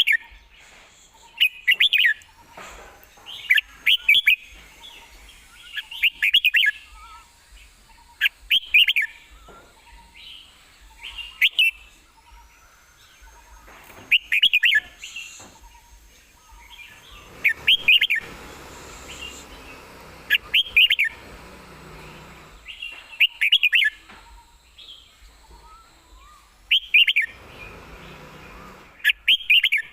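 Red-whiskered bulbul singing: a dozen or so short, quick whistled phrases, each about half a second long, repeated every two to three seconds.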